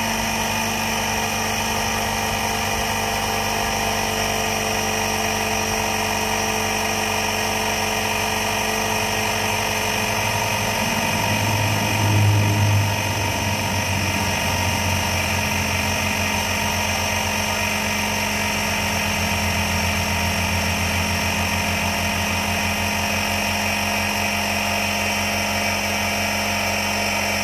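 Tankless onboard air compressor running steadily, filling Air Lift LoadLifter 5000 helper air bags under a heavy trailer load. A louder low hum swells briefly about twelve seconds in.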